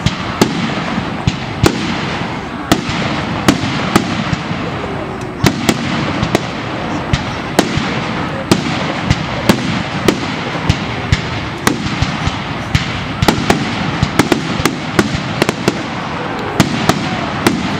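Aerial fireworks shells bursting in quick succession: sharp bangs at irregular intervals, about two or three a second, over a steady noisy background between the bangs.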